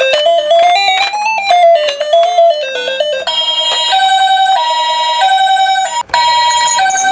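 A short electronic melody of stepped notes, then from about three seconds in an electronic two-tone hi-lo ambulance siren, the Japanese 'pee-po' type, switching between a higher and a lower tone about every half second. The siren breaks off briefly near the end.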